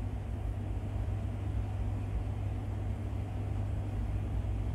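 A steady low background hum, even throughout, with no distinct foreground sound.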